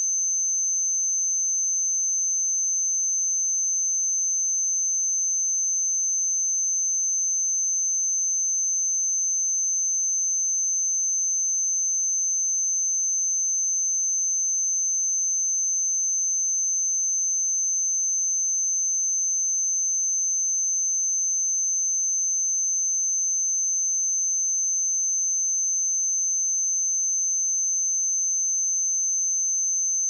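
A steady, high-pitched pure sine-wave test tone at 6211 Hz, held at a constant level without change.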